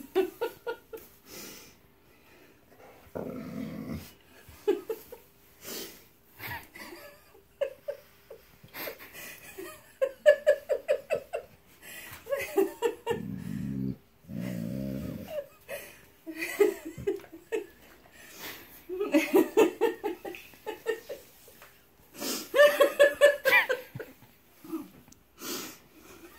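A Walker hound grumbling and groaning in protest as he is shoved along a wooden floor, mixed with several bursts of a person's laughter, the loudest near the end.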